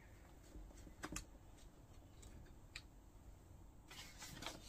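Near silence with a few faint light taps, then a soft rustle of paper and card being handled near the end.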